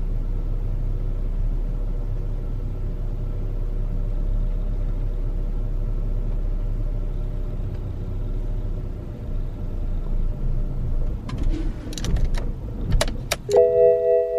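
Car engine idling steadily. Near the end come several sharp clicks and a short chime.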